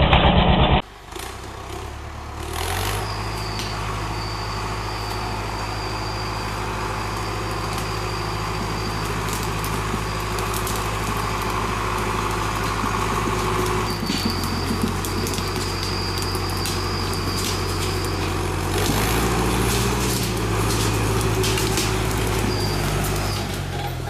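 A machine's engine running steadily, its pitch shifting a few times as the load changes, with a thin high whine coming and going and scattered clicks and knocks.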